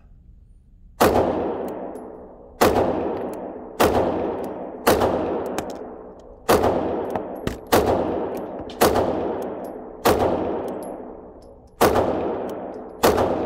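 Sig P320 pistol firing a slow string of about ten single shots, roughly one every second or so, each crack followed by a long echoing decay off the concrete walls of an indoor range.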